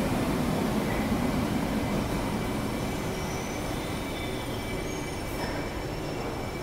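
Old metro train rolling along the station platform and slowing as it pulls in, its low rumble gradually fading, with faint high wheel squeals in the second half.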